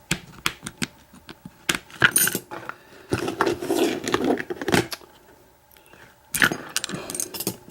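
Small steel parts of a hardened-steel padlock and its tools clinking and clicking as the lock is taken apart: scattered sharp clicks, a longer scraping rustle midway, and a louder knock and clatter near the end.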